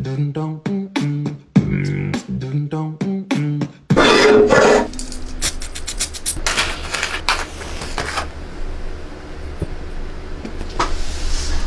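A short tune with a stepping melody plays for about four seconds. Then an aerosol spray can hisses loudly for about a second, followed by shorter spray bursts and small handling clicks.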